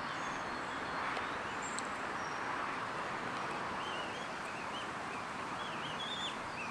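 Goslings peeping: a string of short, high, rising-and-falling peeps that begins about halfway through, over a steady outdoor background hiss.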